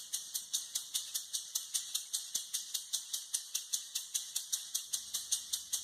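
Maracas shaken in a steady rhythm, about five or six shakes a second.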